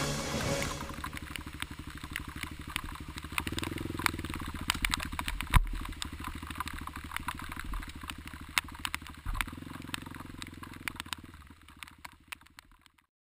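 Motorcycle engine running on the move, heard from a camera mounted on the handlebars, with frequent sharp clicks and rattles. The engine gets louder twice, a few seconds in and again near the end, then the sound fades out.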